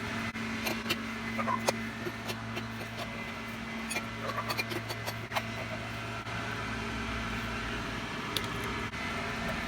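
Scattered metallic clicks and taps of a wrench working the fitting on an air compressor's pressure regulator, over a steady low hum.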